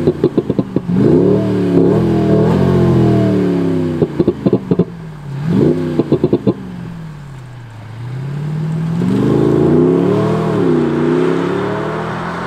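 Mercedes-Benz E200 Cabriolet accelerating away, its four-cylinder engine voiced by an aftermarket Active Sound generator that plays a synthetic V8-style exhaust note. The note climbs in pitch and breaks three times with quick bursts of crackling pops, typical of the module's simulated misfire function. Past the middle the pitch falls away, then rises again.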